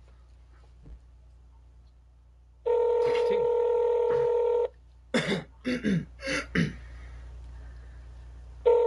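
Telephone ringback tone heard down the phone line as a call is redialled: one steady two-second ring, a few short voice sounds, then the next ring starting near the end, in the North American pattern of 2 s on and 4 s off.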